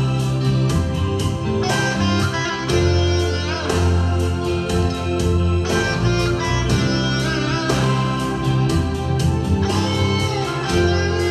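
Instrumental backing music with guitar over a steady beat, with no singing heard.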